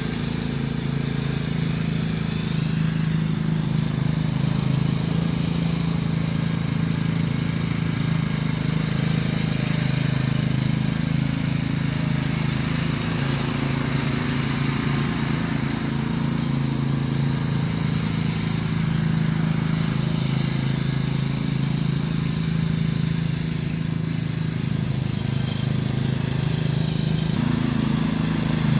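Cub Cadet CC30H rear-engine riding mower running at a steady, unchanging pitch while it drives over the lawn picking up leaves into its rear bagger.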